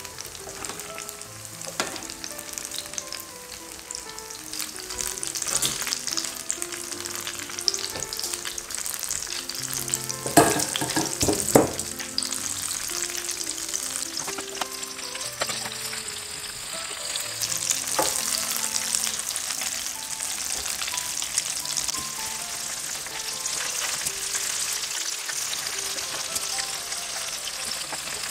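Breaded egg-and-tomato balls deep-frying in a pot of hot oil, a steady crackling sizzle. A metal slotted spoon stirs and turns them, with a few sharp knocks against the pot, the loudest around ten to twelve seconds in.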